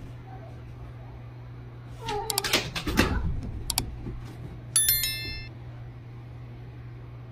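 A domestic cat meows a few times about two seconds in. A short bright electronic chime follows near the middle, over a steady low hum.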